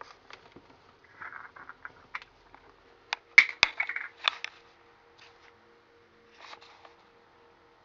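A cat batting and knocking small household objects about on a wooden floor: scattered clicks, scrapes and rustles, with a flurry of sharp clicks and clatter about three to four and a half seconds in. A faint steady hum runs underneath.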